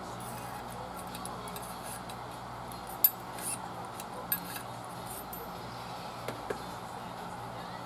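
A handful of sharp metallic clinks, the loudest about three seconds in and two more close together near the end, over a steady low hum.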